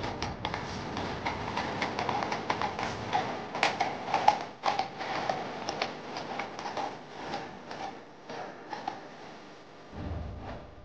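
Irregular clopping of the hearse horses' hooves on the road, mixed with the footsteps of a large crowd walking behind. The clicks grow sparser and fade over the last few seconds.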